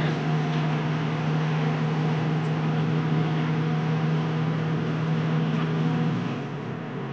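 Engine drone and tyre and road noise heard from inside a vehicle cruising on the highway. About six seconds in, the engine note drops lower and the sound briefly quietens before picking up again.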